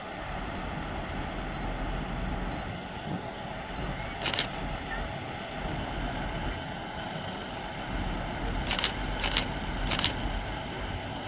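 Diesel multiple units at a platform: a steady low engine rumble from the standing Class 158 and the TransPennine Class 185 drawing in. Several short, sharp hissing bursts cut through it, one about four seconds in and a cluster near the end.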